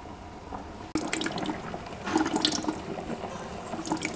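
Orange halves squeezed by hand, the juice squelching and splattering into a plastic pitcher in short, irregular spurts that begin about a second in.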